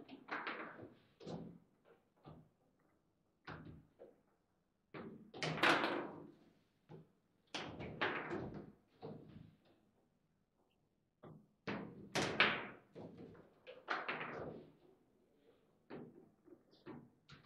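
Foosball table in play: the hard ball is struck by the plastic player figures and bangs off the table walls, with the rods knocking. The knocks come irregularly in clusters with quiet gaps between, and the loudest hits land about six seconds in and again around twelve seconds.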